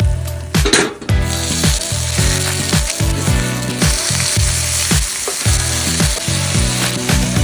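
Food sizzling as it fries, a steady hiss, over background music with a steady beat.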